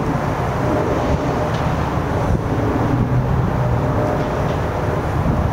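Wind buffeting the microphone, a steady low rumble with faint hum underneath.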